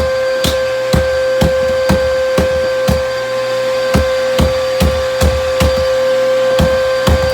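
Bissell vacuum cleaner running with its seal removed, its motor holding a steady whine. Loose objects inside knock and rattle irregularly, about twice a second.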